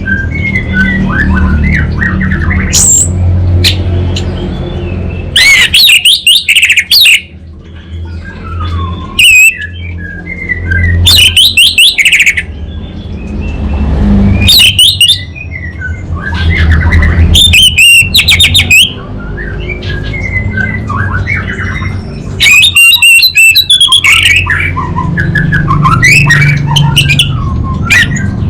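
Orange-headed thrush singing: loud bursts of fast, varied, high song every few seconds, with softer chirps between them. A low steady hum runs underneath.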